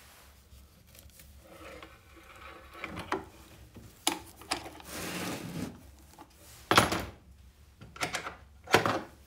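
Handling noises from a 1938 portable wind-up gramophone: a run of knocks and clicks from its case and metal tone arm, with a brief scraping rub about five seconds in and the two sharpest clacks near seven and nine seconds in.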